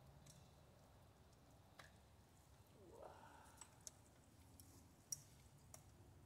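Near silence with a low hum and a few faint, scattered clicks.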